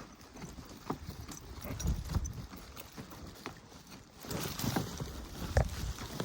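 Irregular footfalls on a forest track: uneven knocks and crunches with heavier thumps about two seconds in and again over the last two seconds.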